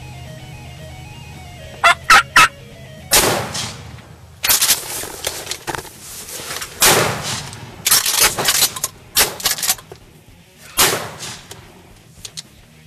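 A wild turkey gobbler calling. There are three short, sharp notes about two seconds in, then a series of loud gobbles roughly a second apart.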